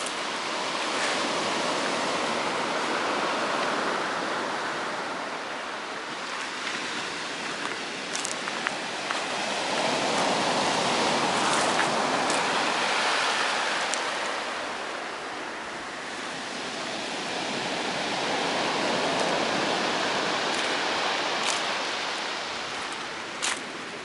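Black Sea surf breaking on a pebble beach: the rush of each wave swells and fades about every eight or nine seconds, three times over, with a few short sharp clicks in between.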